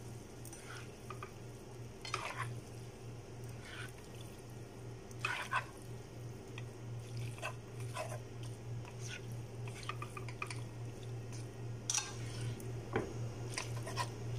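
Cooked spaghetti being tossed in a frying pan with silicone-tipped tongs: scattered soft clicks and wet squishing, over a steady low hum.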